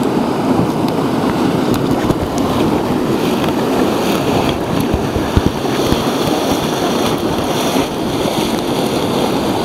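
Loud, steady rush of river whitewater as a raft runs through rapids, with a couple of sharp knocks about halfway through.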